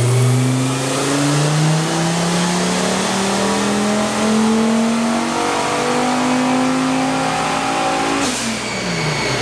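Turbocharged VW 07K 2.5-litre five-cylinder engine making a full-throttle pull on a chassis dyno. The engine note climbs steadily through the revs for about eight seconds, then the throttle closes and the revs fall away.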